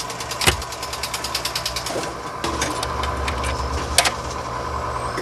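Jukebox record-changing mechanism at work. Its motor runs while the selector turns with rapid clicking, about ten clicks a second, with a knock about half a second in. From about two and a half seconds it goes over to a steadier hum, and a sharp clack comes about four seconds in as the record comes to rest on the turntable.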